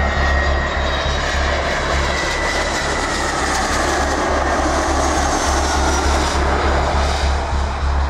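Airbus A319's CFM56 jet engines on low final approach, passing close: a steady jet roar with a high fan whine that slowly falls in pitch as the aircraft goes by.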